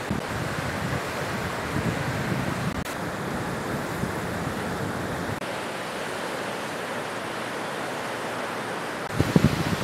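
Sea surf breaking and washing onto a sandy beach: a steady rushing wash of waves, with wind. Near the end come a few sudden low thumps, louder than the surf.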